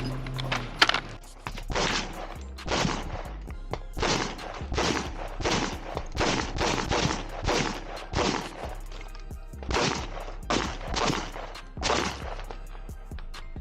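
Background music with a steady, heavy percussive beat.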